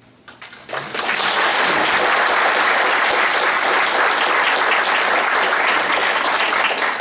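Applause from a roomful of people, rising quickly within the first second and holding steady.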